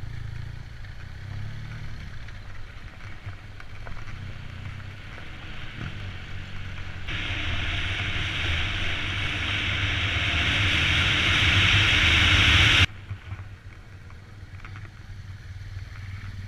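A vehicle engine running steadily while riding. A loud rushing hiss builds from about seven seconds in, growing louder, and cuts off abruptly near thirteen seconds, leaving the engine hum.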